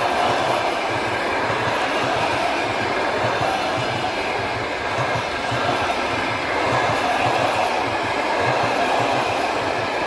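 Russian passenger coaches rolling past at speed, their wheels clattering on the track in a steady, repeating rhythm over a continuous rumble.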